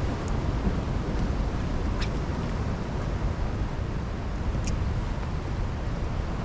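Wind buffeting the microphone, a steady rumbling noise, with three faint short high ticks spread through it.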